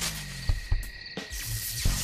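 Cartoon sound effects over background music: a few low thumps, then a loud hissing electric crackle that builds from about halfway through, as the machine's electrodes zap with electricity.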